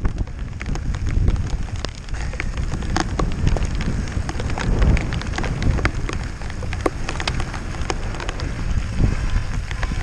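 Mountain bike descending fast on a rough trail: wind rumbling on the onboard microphone, tyres crunching over loose stones, and a constant run of sharp clicks and rattles from the bike.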